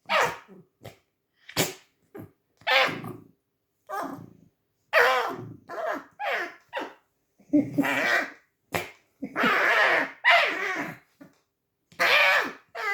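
Pet red fox squeaking: a dozen or so short calls, many falling in pitch, a few harsher and longer about ten seconds in. These are the grumbling, protesting noises of a fox being handled and biting in play.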